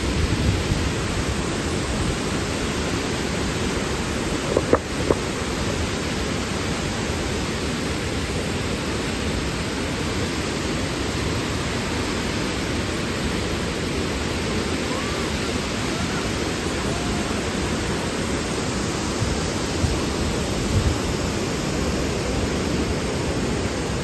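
Large waterfall plunging onto rock: a steady, loud rush of falling water. Two brief knocks stand out about five seconds in.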